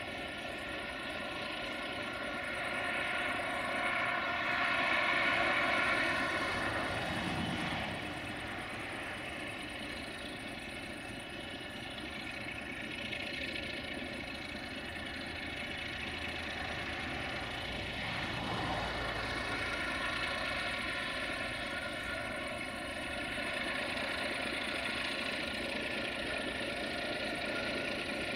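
Diesel engine of an LDE2100 (060-DA) diesel-electric locomotive running as it approaches with a freight train, a steady drone with several tones. It swells about five seconds in and grows louder again toward the end as the locomotive draws near.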